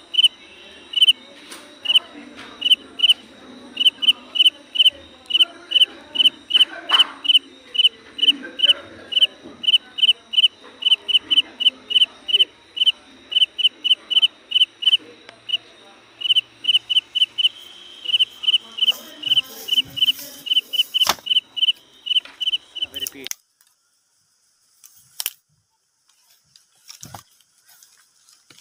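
An animal's short, high chirp repeated about three times a second, loud and insistent over a low outdoor murmur; it cuts off suddenly near the end, after which there are only a few faint clicks.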